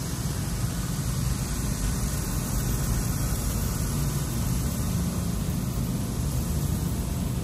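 Automatic car wash heard from inside the car: a steady rush of water spraying and streaming over the windshield and body, over a constant low hum.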